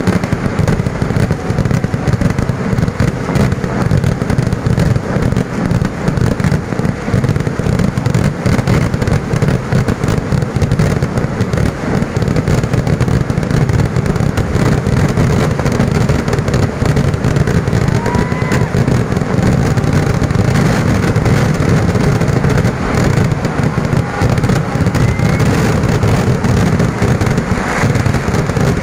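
Kerala festival fireworks (vedikkettu): a dense, unbroken barrage of booming and crackling explosions. A few short whistles rise over it.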